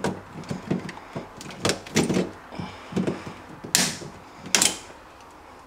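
Hand-tool and wire handling inside a fridge's plastic-lined cooler compartment: a scattered series of light clicks and knocks, with two brief hissing rustles about midway.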